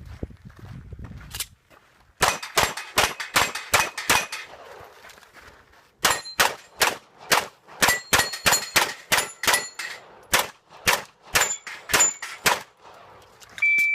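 Glock pistol fired rapidly in two strings: about a dozen fast shots, a pause of over a second, then a longer string. Several shots are followed by steel targets ringing as they are hit. A short beep comes right at the end.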